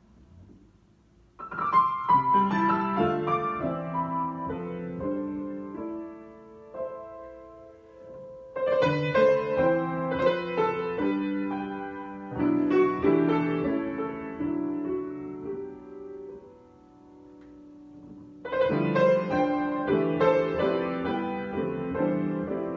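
Solo piano improvisation: chords and melody struck and left to ring and fade, in three phrases that start about a second and a half in, near nine seconds and near eighteen seconds, with a soft lull just before the last.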